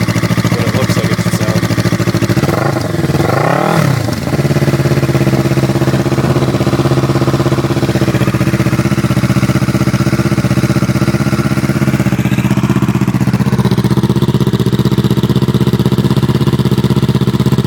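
Kawasaki Ninja 650R's parallel-twin engine idling steadily through a short slip-on muffler, with one quick blip of the throttle about three seconds in.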